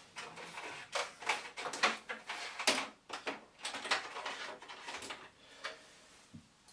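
Irregular scrapes, rustles and light knocks as a USB cable is fed through the cable hole in a monitor stand and handled behind the monitor. The handling noises come thick in the first few seconds and thin out near the end.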